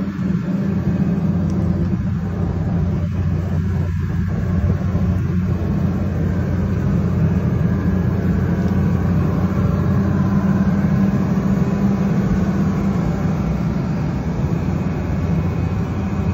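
Engine running at a steady speed: a loud, even low rumble with a constant hum.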